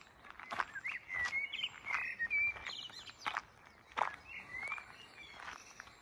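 A songbird singing short whistled, warbling phrases, busiest in the first half, over steady footsteps on a gravel path.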